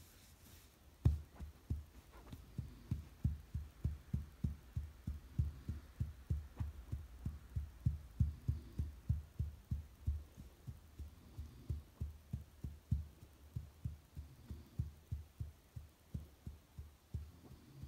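Soft, low thumps in a steady rhythm, about three a second, starting with a louder one about a second in: a hand gently patting a resting dog to lull him to sleep.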